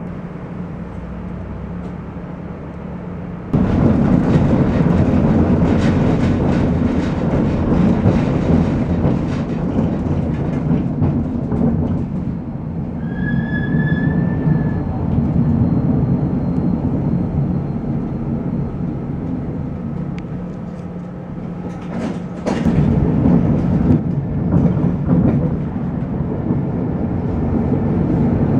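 Tram heard from inside the car: a steady hum while standing, then a jump to loud rolling rumble as it pulls away, with repeated clicks of wheels over rail joints. A short high wheel squeal comes about midway. A second, louder run of clatter comes about three quarters through.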